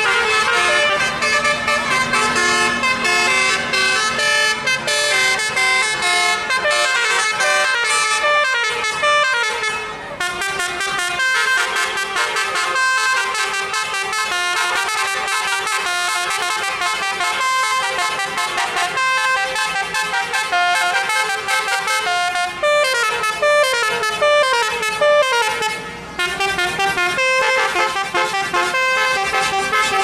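Telolet bus horn, a set of roof-mounted trumpet horns, playing a fast melody of several notes sounding at once and changing quickly. It sounds loudly almost without a break, with two brief dips in level.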